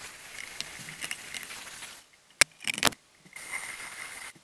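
Craftsman drill spinning a wire brush against the rusty steel floor pan, scouring off rust: a steady scraping whir for about two seconds, then a sharp knock and a quick rattle of clicks, then another short run of scraping near the end.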